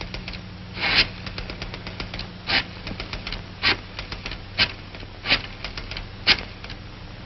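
Rotary telephone being dialled: a run of mechanical clicks as the dial is turned and springs back, with a louder clack about once a second and quicker small ticks between, over a steady low hum.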